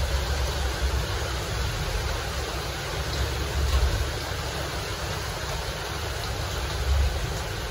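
Steady rushing noise with low rumbles that swell a few times, about a second in, around three to four seconds in, and near the end.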